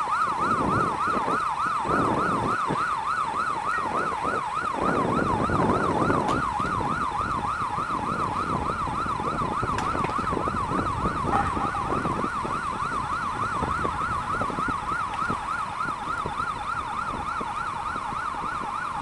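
Travel warning siren of a rail-mounted gantry crane in motion: a steady warbling tone rising and falling about three times a second, over a low rumble.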